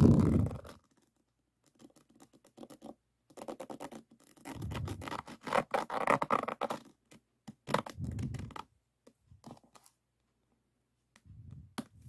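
A plastic diamond-painting tool is rubbed and scraped across the faceted resin drills of a finished diamond painting, making a scratchy rattling. The sound comes in several bursts, a second or more each, with short pauses and a few light taps between them.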